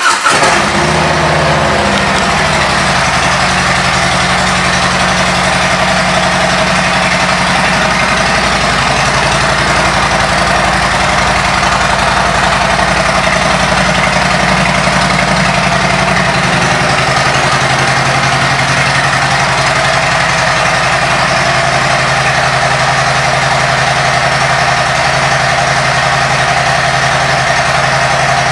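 2018 Harley-Davidson Street Glide's Milwaukee-Eight V-twin, fitted with a Vance & Hines exhaust, idling steadily just after start-up; the revs drop and settle over the first couple of seconds.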